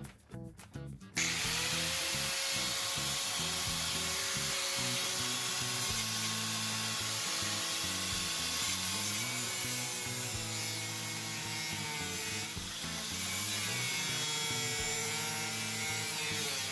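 A power tool working metal starts about a second in, its whine rising as it spins up. It then runs steadily with a harsh, hissing grind.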